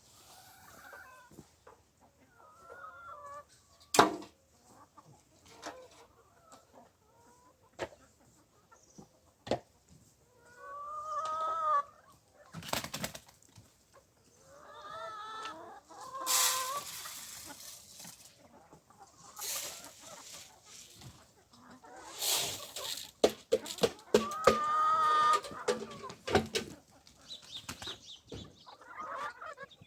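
Domestic chickens clucking, with several loud wavering squawks. These are mixed with a sharp knock and bursts of rustling or flapping noise.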